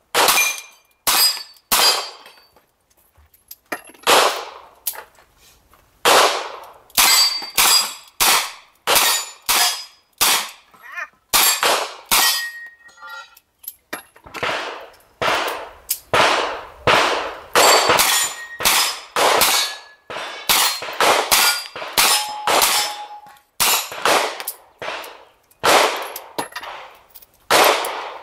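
Rapid shots from an eight-shot open revolver, many followed by the ringing clang of a hit steel target plate. The shots come in quick strings, with pauses of a few seconds between them.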